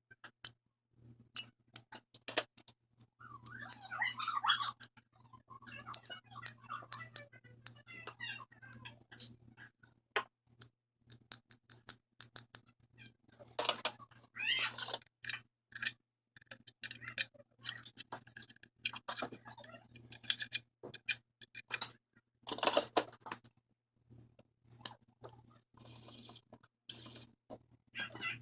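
Irregular clicks, taps and scratchy rubbing of hands working on computer parts, over a faint steady low hum.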